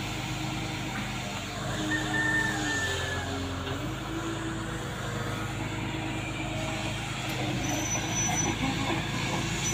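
Hydraulic excavator's diesel engine running steadily. Its note shifts for a moment a few seconds in, with a short high whine near two seconds.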